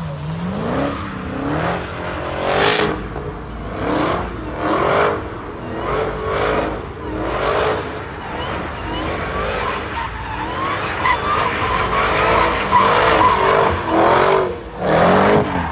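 Dodge Charger SRT Hellcat's supercharged V8 revving up and dropping back again and again during a burnout, with the rear tyres squealing as they spin. The squeal is steadiest and loudest in the last few seconds.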